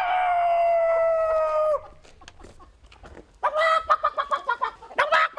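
A rooster crowing, its long final note held for nearly two seconds and falling slightly, followed about three seconds later by a burst of short clucking calls.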